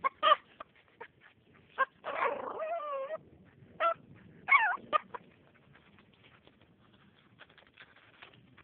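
Dog whimpering and whining in short cries, with one longer wavering whine about two and a half seconds in and a rising-and-falling whine near five seconds: the sound of a dog frustrated at a treat lying just out of its reach.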